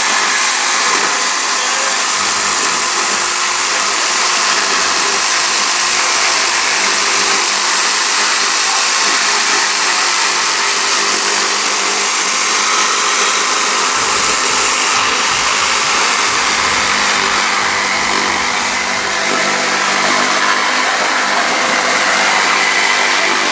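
A small electric motor, such as a power tool's, running steadily with an even whir and hiss.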